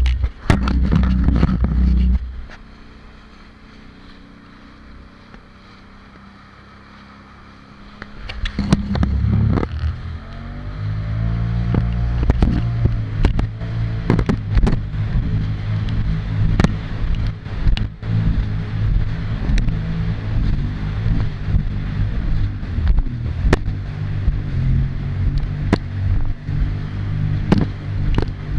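Jet ski engine running fast, then eased back to a low idle a couple of seconds in. About eight seconds in it is throttled up again, its pitch rising, and it runs at speed with repeated thumps from the hull slapping over the waves.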